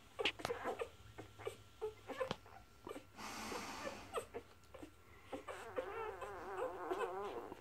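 Newborn puppies squeaking and whimpering with short high calls while they nurse, among small sharp suckling clicks. Near the end one puppy gives a longer wavering whine.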